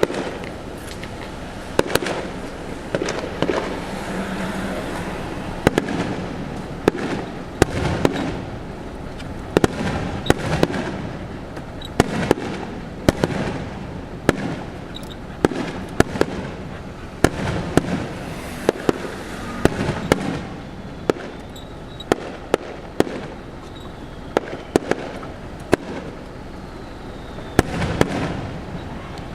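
Fireworks display: aerial shells bursting with sharp bangs at irregular intervals, several in quick succession, over the continuous crackle and rumble of the show.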